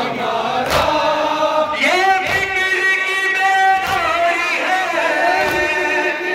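A male-voice noha chanted in unison by a group of men, led by a male reciter on a microphone, with long held notes. About every second and a half a sharp slap of chest-beating (matam) keeps the beat.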